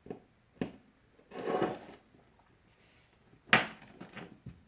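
Pedal parts and tools being handled during reassembly: a few light clicks, a brief scraping rustle, and one sharp click about three and a half seconds in.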